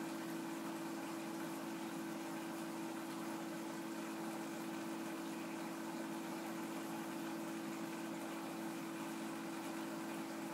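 Steady hum of aquarium equipment: one constant tone over an even hiss of moving water, unchanging throughout.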